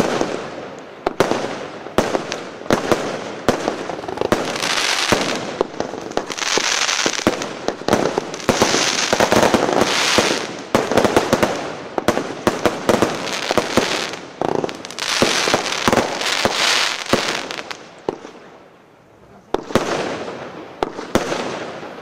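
Lesli 'After Midnight' 40-shot consumer firework cake firing shot after shot: sharp launch and burst bangs with crackling, hissing star tails between them. There is a short lull near the end before more shots follow.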